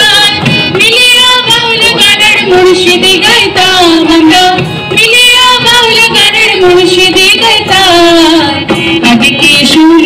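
A group of women singing a song together live on stage.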